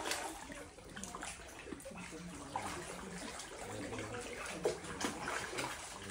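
Water splashing and lapping in small irregular splashes as swimmers in life vests paddle through a cave pool.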